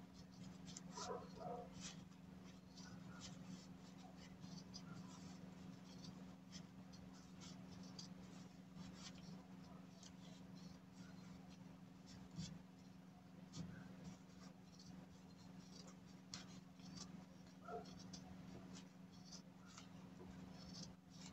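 Fabric scissors clipping notches into the seam allowance of a fabric piece: a faint, irregular run of small snips over a steady low hum.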